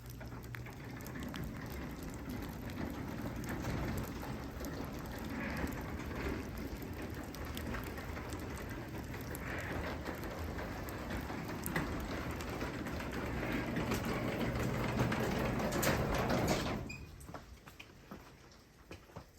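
Craftsman 3/4 hp belt-drive garage door opener raising the door: a steady mechanical running sound that stops abruptly about three seconds before the end.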